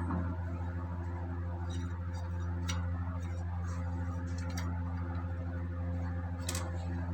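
Steady low machinery hum with a few light metallic clicks and ticks scattered over it, from engine parts and tools being handled while pistons are fitted.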